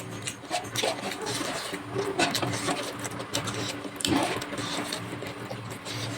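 Close-miked chewing and wet lip smacking of someone eating chicken curry and rice, a quick irregular run of clicks and smacks over a steady low hum.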